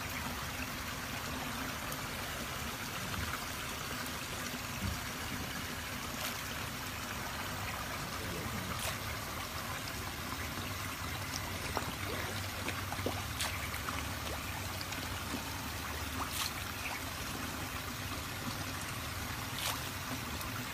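Steady rush of running water at a koi pond, with a few sharp clicks or small splashes scattered through it.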